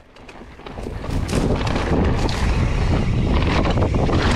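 Wind buffeting the microphone and a mountain bike's tyres and frame rattling over a rocky dirt trail. It builds over the first second as the bike picks up speed downhill, then holds steady with many small knocks.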